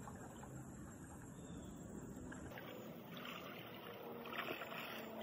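Faint, steady wash of a shallow creek flowing around a wader's legs. The background changes abruptly about halfway through.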